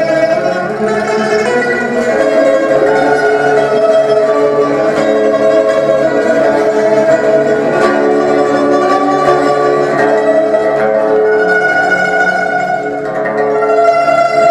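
A quartet of pipas (Chinese lutes) playing together, with long held notes sustained by tremolo picking over several lower parts.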